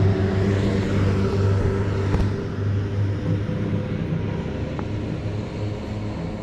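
A steady engine drone, a low hum holding one pitch throughout, with a single sharp click about two seconds in.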